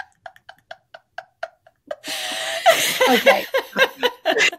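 People laughing: a quiet run of short laugh pulses, about four a second, then louder, breathy laughter from about two seconds in.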